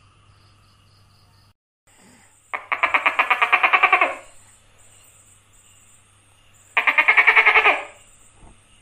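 Gecko calling: two runs of rapid chattering pulses, about twelve a second, each lasting about a second and a half and a few seconds apart.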